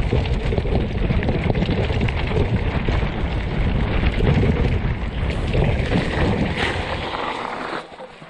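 Wind buffeting a bike-mounted camera microphone while a mountain bike rides fast down a rough dirt trail, its tyres rumbling and the bike rattling over bumps. It quietens near the end as the bike slows.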